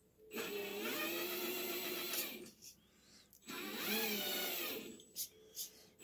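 Electric drive motor and gears of a Tamiya Scania R620 RC truck whining in two throttle bursts, the pitch rising as it speeds up and falling as it slows, with a short blip near the end.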